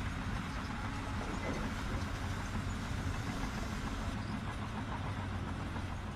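An engine, likely that of a piece of heavy construction machinery, running steadily with a low, even rumble.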